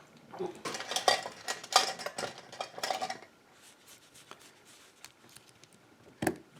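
Small metal clicks and rattles of a lock and hand tools being handled, busy for the first three seconds, then quieter, with one sharp knock near the end.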